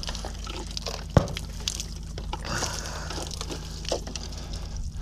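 Shot-through plastic water jugs being handled, with water splashing and dripping out and light plastic clicks and knocks, one sharp knock about a second in.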